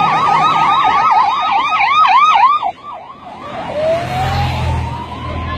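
Police sirens of a passing motorcade. One runs in a fast warbling yelp that slows and cuts off suddenly about halfway through. About a second later a siren starts a slow rising wail, over the engine of a police motorcycle riding past.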